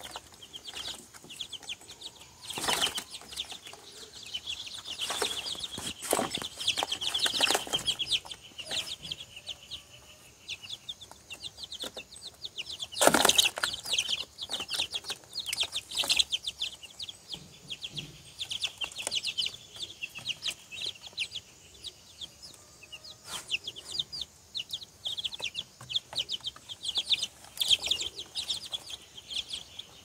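A group of chicks peeping rapidly and almost without pause, with short bursts of wing flapping and scuffling among them; the loudest flurry comes about thirteen seconds in.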